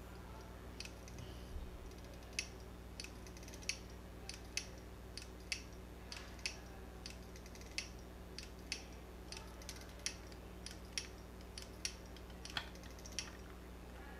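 Seagate hard drive clicking repeatedly after spin-up, about one to two sharp clicks a second over a steady low hum. The clicking is the sign of failing heads, which the technician puts down to a preamp fried by a power surge.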